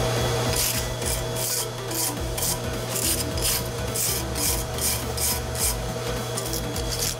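Hand-held steel wire brush scrubbing a twisted square mild-steel bar clamped in a vise, rasping back and forth at about two strokes a second, with a short pause near the end. It is cleaning the black forge scale off the freshly twisted bar.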